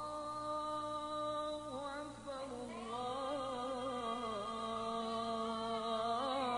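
A single voice singing unaccompanied in long held notes with small ornamental turns between them: the opening of an Islamic nasheed.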